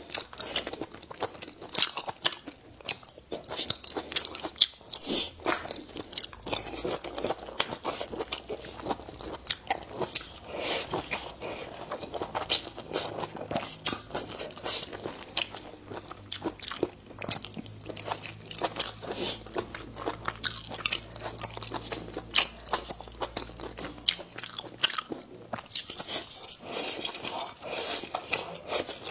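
Close-miked eating: crisp crunching bites and chewing, with many sharp crackles throughout. A faint low hum sits under the middle part.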